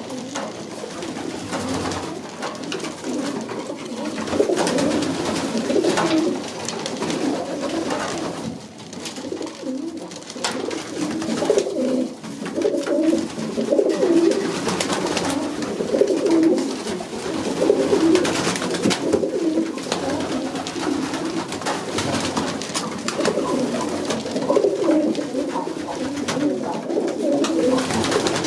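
A flock of Vienna High Flyer pigeons cooing continuously, many low coos overlapping, with frequent short clicks and wing flutters from the birds moving on the wooden landing board.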